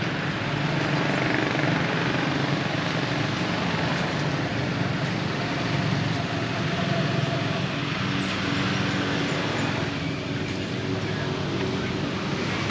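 An engine running steadily, its low hum holding a fairly even pitch under a broad rushing noise.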